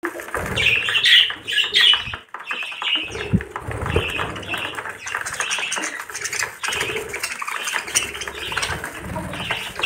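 Budgerigars chirping and chattering continuously, with rustling and wing flaps.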